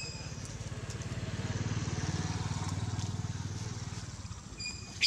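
A motor vehicle's engine passing, with a low rapid putter that grows louder to about two seconds in and then fades. Brief high chirps come near the end.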